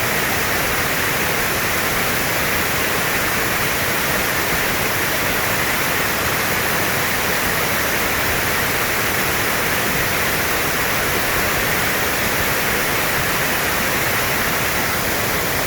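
Tall cascading mountain waterfall heard up close: a steady, unbroken rushing of falling water.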